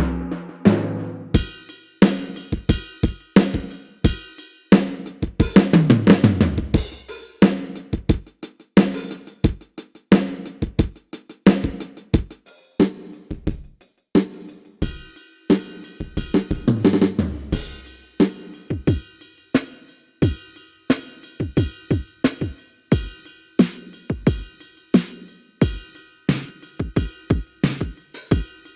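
Sampled drum sounds from a Ketron SD90 SF2 SoundFont drum kit played one hit after another: kick, snare, hi-hat and cymbal strikes. Twice a run of tuned drum hits falls in pitch, like a tom fill down the kit.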